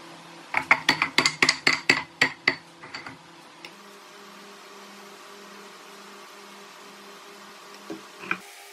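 Hardwood cutting-board strips knocking against each other and the bench, a quick run of about a dozen sharp wooden clacks as they are handled for a glue-up. A steady low hum follows, with two small knocks near the end.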